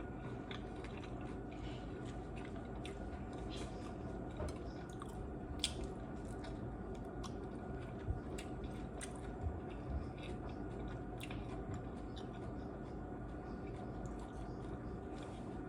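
Close-up chewing and crunching of crisp fried tortilla shells from beef tostadas and tacos, with short crackles scattered through, over a steady background hum.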